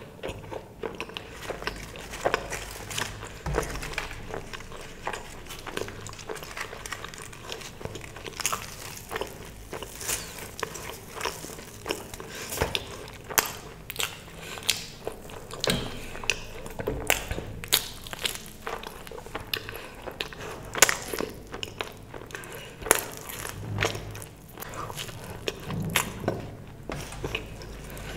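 Close-miked eating: biting and chewing food, with many irregular sharp crunchy clicks and mouth sounds.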